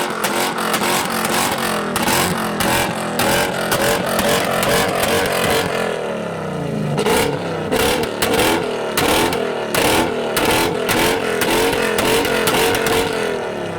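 Modified car engine revved hard over and over, with rapid exhaust pops and bangs crackling between and through the revs: an exhaust spitting flames. The revs drop away briefly around the middle, then pick up again.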